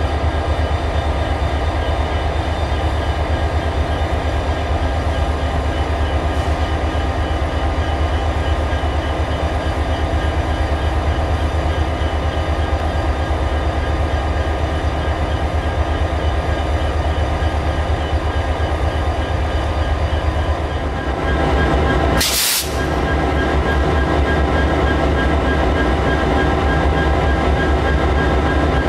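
Diesel-electric locomotives idling steadily, heard close to an SD40-3 with its 16-cylinder EMD 645 engine: a deep, even rumble with a constant engine drone. A short crackle about three-quarters of the way through.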